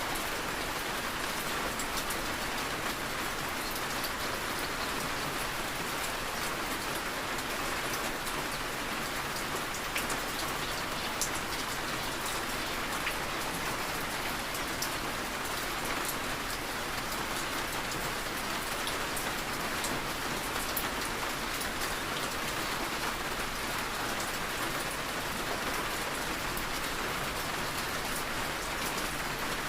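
Steady rain falling on a surface, an even hiss with scattered individual drop taps.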